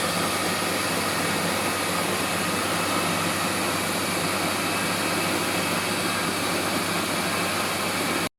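Combined rice milling and crushing machine running, a loud steady mechanical whir over a low hum; it cuts off suddenly near the end.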